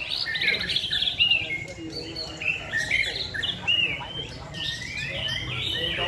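Several caged shamas singing over one another: varied whistled phrases that glide up and down, with short quick trills.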